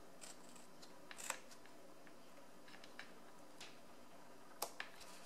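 Scissors cutting through cardstock: a few faint, separate snips spread over several seconds.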